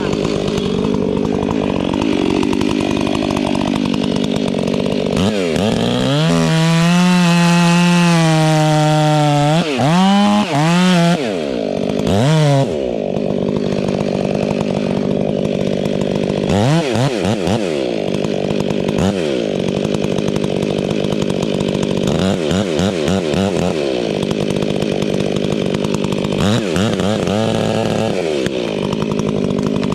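Two-stroke chainsaw running throughout. It is revved up and held at full throttle for several seconds about six seconds in, then blipped up and down repeatedly between stretches of idling.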